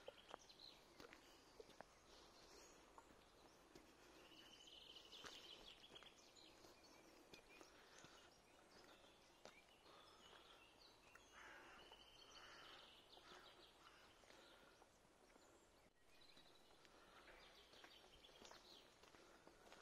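Faint songbird song: several short high trills and chirps repeating every few seconds, with soft, scattered footsteps on a path.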